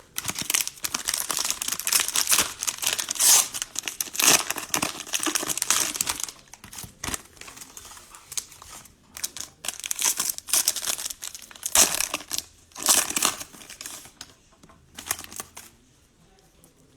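Plastic cello-pack wrapper of a trading-card pack crinkling and being torn open, in a dense stretch for about six seconds, then in shorter bursts that die away near the end.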